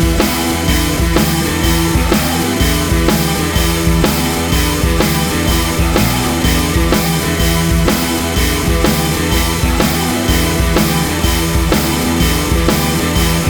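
Rock music with a driving drum kit beat and guitar.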